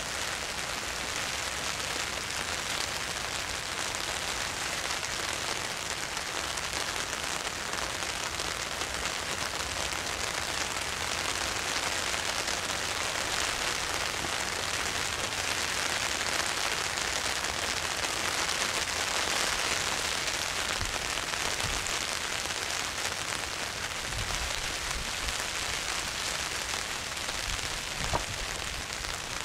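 Steady rain hissing on standing pond water and a plastic pond liner. A couple of dull knocks near the end come from flat stones being set down on a dry stone wall.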